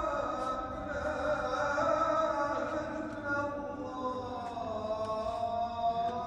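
A man's solo voice chanting in the Islamic call-to-prayer style: long held notes that slide slowly up and down in pitch.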